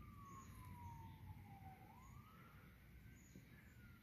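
Ambulance siren wailing faintly: one tone sliding slowly down, climbing back up about two seconds in, and starting to fall again near the end.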